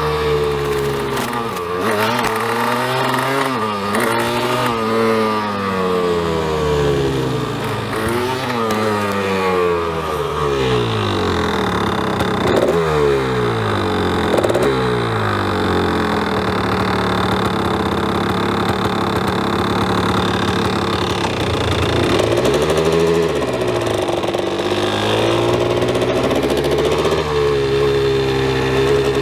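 Two-stroke single-cylinder engine of a 1986 Honda ATC 250R three-wheeler, ridden on a test run. Its pitch rises and falls several times as the rider revs and shifts, with a stretch of steady running near the middle.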